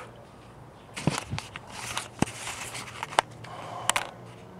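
Handling noise: a run of sharp knocks and clicks with rustling in between, starting about a second in and dying away near the end, over a faint low steady hum.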